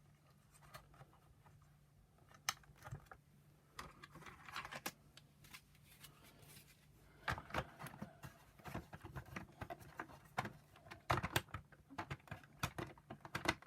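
Plastic parts of a Shark power nozzle being handled and fitted together by hand: scattered light clicks and knocks, sparse at first and more frequent in the second half.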